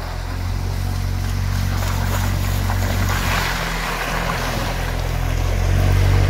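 ATV engine running as the quad crawls through boggy mud, getting louder as it approaches.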